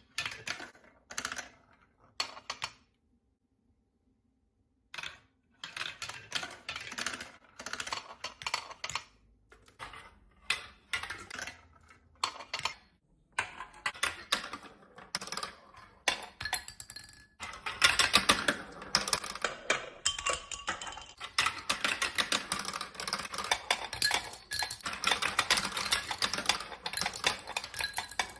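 Clicking and clattering of a marble run: small hard pieces and marbles knocking together. A few scattered clicks and a pause of about two seconds lead into near-continuous clatter that grows busier in the second half.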